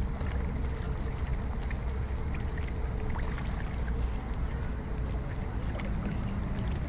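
Steady low rumble with faint, scattered small splashes and gulps from koi crowding and feeding at the pond surface.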